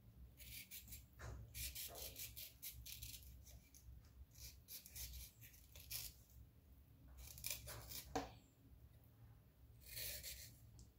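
Kitchen knife slicing through ripe mango flesh and scraping against a wooden chopping board: faint, quick rasping strokes in several short runs.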